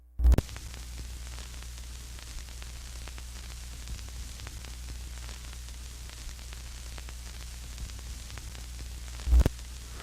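Steady low hum under a hiss full of small crackles, like static, with two short low thumps: one just after the start and one near the end.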